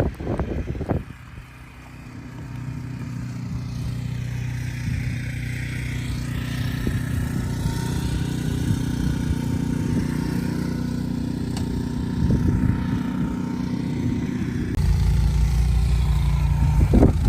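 A motor vehicle engine running steadily, growing louder over the first few seconds, then shifting to a deeper, louder rumble about fifteen seconds in.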